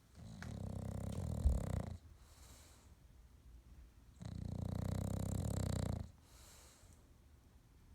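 English bulldog snoring in its sleep: two long, buzzy snores of about two seconds each, roughly four seconds apart, with quiet breathing between. A brief low bump comes during the first snore.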